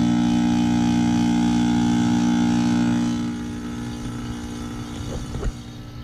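Outdoor unit of a 2006 three-ton Heil heat pump running with a loud, steady hum that drops off about three seconds in, leaving a quieter hum. A few short scraping or rattling sounds come near the end.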